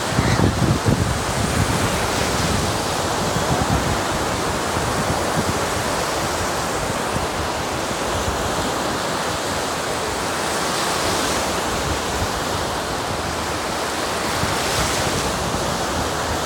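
Small lake waves breaking and washing up a sandy beach in a steady rush of surf, swelling louder about eleven and fifteen seconds in. Wind buffets the microphone, most in the first second or so.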